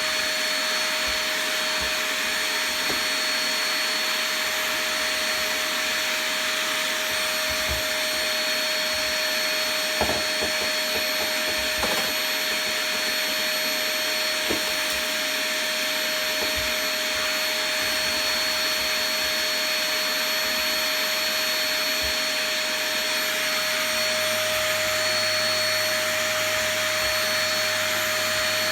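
Cheap "Epic" canister-type household vacuum cleaner running steadily with a constant whine, with a few light knocks near the middle as it bumps around.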